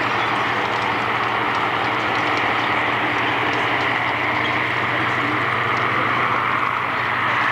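Aircraft engines running, a steady drone with an even rushing noise over it.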